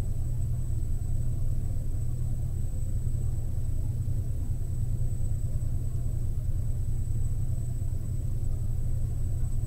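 Steady low background hum with a faint, thin high-pitched whine over it, unchanging throughout; no distinct handling sounds stand out.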